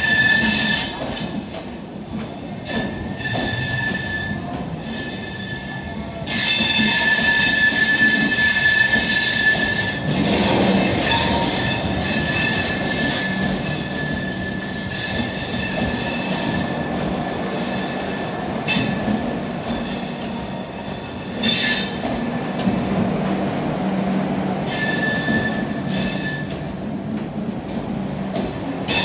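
LHB passenger coaches rolling slowly past, their wheels squealing against the rails. The high-pitched squeal comes and goes over a low rumble and is loudest for a few seconds about six seconds in.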